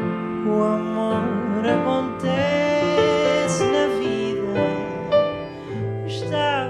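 A male voice singing a slow, gliding melody over grand piano accompaniment.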